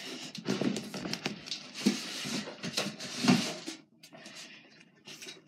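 Irregular rustling and light knocks from someone moving about at a table and getting up, fading to quiet after about four seconds.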